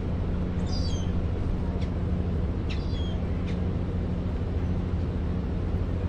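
A steady low hum, with a few short, high, falling bird chirps about a second in and again near three seconds.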